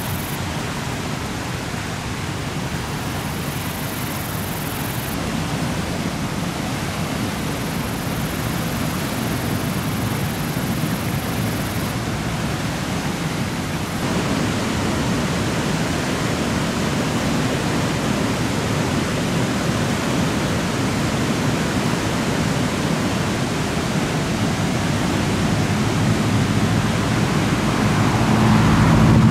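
Steady rush of fast-flowing floodwater, growing a little louder near the end.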